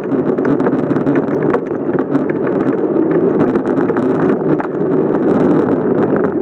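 Wind buffeting the microphone and tyre noise from a bicycle being ridden over pavement, steady throughout, with many small rattling clicks.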